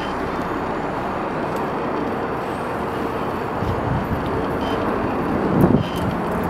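Steady city street traffic noise, with one vehicle swelling louder as it passes near the end.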